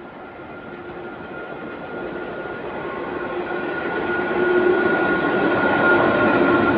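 Electric train approaching and passing along the line, its rumble growing steadily louder over the first four or five seconds, with a steady whine running over it.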